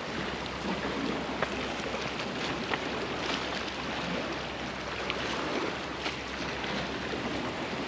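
Steady rushing wash of sea waves along the shore.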